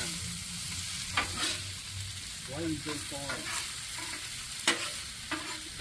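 Sliced steak with peppers, mushrooms and onions sizzling steadily as it fries, being stirred, with a few short sharp knocks.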